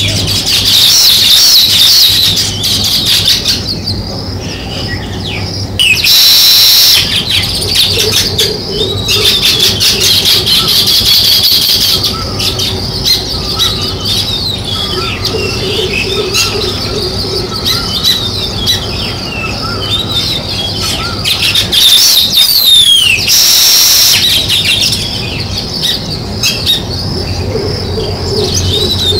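House sparrows chirping continuously, several birds at once in a busy, overlapping chatter, with two brief loud bursts of noise about six and twenty-three seconds in.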